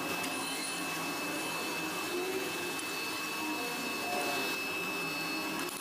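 Metal lathe running steadily, spinning a meat grinder body held in its four-jaw chuck, with an even machine noise and a thin high whine.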